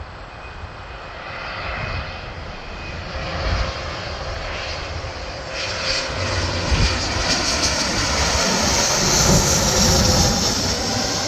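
Dassault Falcon trijet business jet on landing approach with its gear down. The jet engine noise grows steadily louder, with a high whine, as the jet comes in low overhead, and the pitch starts to fall near the end as it passes.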